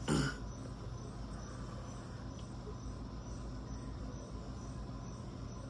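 Steady background room tone: a low hum and a faint high steady tone over hiss, with no distinct events.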